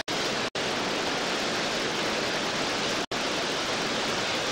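Steady rush of whitewater rapids on a mountain river, a loud even roar of churning water. The sound cuts out for an instant about half a second in and again about three seconds in.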